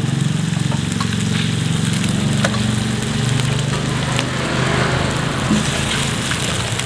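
Garlic and oil sizzling in a hot carbon-steel wok as eggs are dropped in to fry, with a few sharp taps of the metal spatula against the wok. A steady low hum runs underneath.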